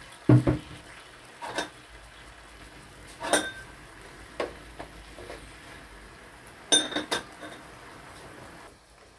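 Metal utensils clinking and knocking against dishes and a grill pan: a handful of separate clinks spread out, then a quick run of louder ringing clinks about seven seconds in.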